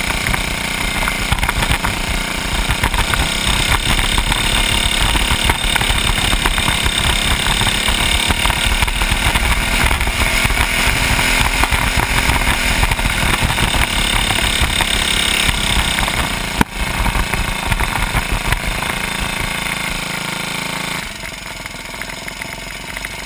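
Small single-cylinder kart engine running on a squirt kart, picked up by the kart's onboard camera as it laps a dirt track, with a sharp knock about three-quarters of the way through. Near the end the engine noise drops as the kart slows and stops.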